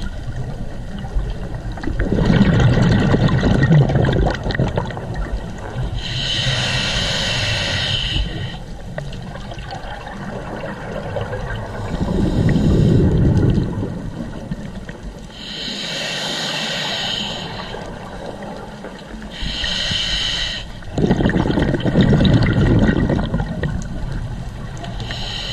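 Scuba diver breathing through a regulator underwater: three slow breaths, each a hissing inhale through the demand valve and then a gurgling burst of exhaled bubbles.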